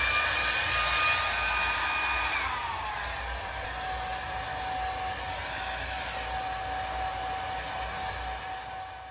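Handheld hair dryer blowing on wet hair. Its motor whine drops in pitch and the blowing eases a little about two and a half seconds in, then runs steady.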